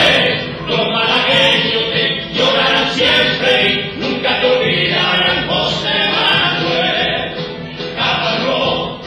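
Music with a choir singing, continuous and loud.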